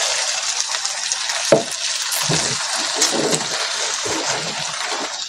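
Water just added to a hot wok of stir-fried vegetables, chicken and sausage sizzling with a steady hiss. A wooden spatula knocks once against the pan about a second and a half in, then stirs and scrapes the food in short strokes.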